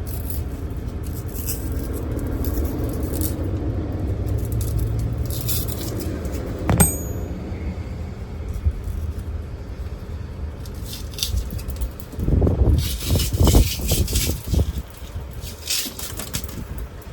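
Scraping and rustling as a truck door's window rubber is worked out of its channel, with a single sharp metallic clink about seven seconds in and a louder spell of knocks and scrapes near the end, over a steady low rumble.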